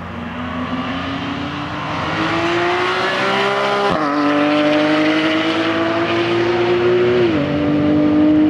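A high-performance car engine accelerating hard: the engine note rises for about four seconds, drops sharply with an upshift, climbs slowly again and dips once more near the end.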